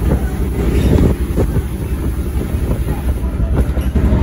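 LiAZ-677MB city bus running, a steady low engine rumble with short knocks and rattles over it, and wind on the microphone.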